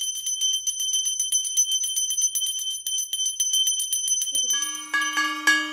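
Brass puja hand bell (ghanta) rung fast, a quick run of clapper strikes over a steady high ring. About four and a half seconds in, a deeper brass gong plate (kansar) starts being beaten, about three strokes a second.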